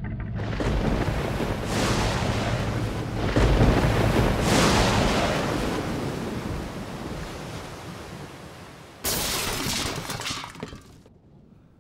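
Rushing wind-and-surf noise of a storm at sea. It swells several times in the first few seconds, then slowly fades. A sudden loud burst about nine seconds in cuts off after about two seconds.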